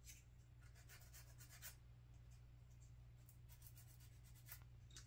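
Faint, irregular scratching strokes of sandpaper smoothing a plastic model kit part where it was cut from the sprue.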